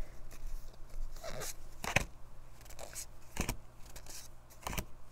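Pokémon trading cards being slid and flicked through the hands one at a time: soft papery scrapes with a few sharp clicks as cards snap past each other.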